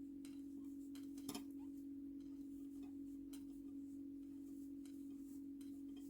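A faint steady hum at one unchanging pitch, with soft scattered clicks from handling a crochet hook and yarn, one slightly louder click a little over a second in.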